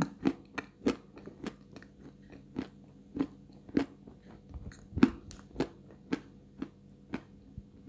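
Close-miked crunching of dry, medium-hard white edible clay ("Astana 2") being chewed, one sharp crunch about every half second. The loudest crunch comes about five seconds in, and the crunches grow fainter near the end.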